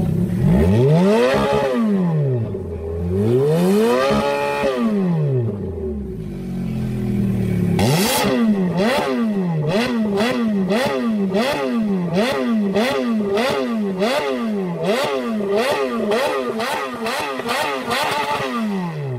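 Ferrari F430's V8 revved while stationary: two long revs rising and falling, then after a brief idle a quick run of about fifteen short throttle blips, roughly one and a half a second.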